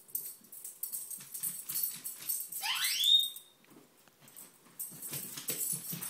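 African grey parrot giving one rising whistle that sweeps up steeply and then holds on a high note for about half a second, a little under halfway through. Quick light clicks and jingles come before it and again near the end.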